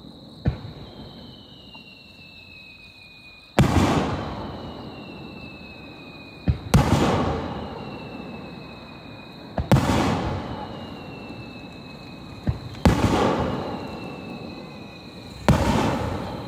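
Aerial firework shells bursting one after another, about every three seconds: five loud booms, each with a long echoing rumble that fades away. Sharper cracks come just before most bursts, and a faint falling tone follows each one.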